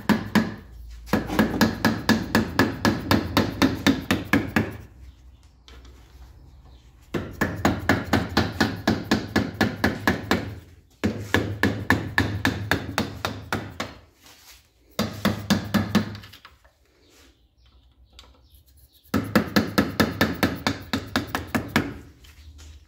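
Rapid rhythmic knocking from a tool working at a seized, broken air fitting on a compressor, about five strikes a second in several bursts of a few seconds each.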